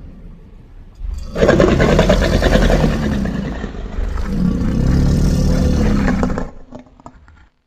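Film monster roar sound effect layered from creature roars: one long, rough, low-pitched roar that starts about a second in, lasts about five seconds, then dies away.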